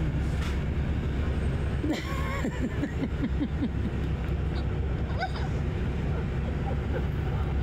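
Steady low rumble of a bus's engine and road noise, heard from inside on the upper deck of a moving double-decker bus, with a brief wavering tone about two seconds in.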